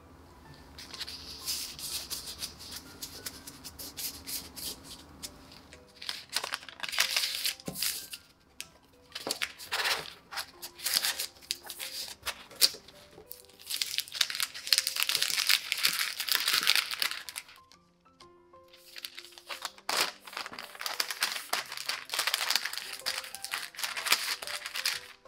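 Parchment paper crinkling and rustling in repeated stretches as cookie dough is pressed on it and wrapped into a log with a plastic scraper, over quiet background music.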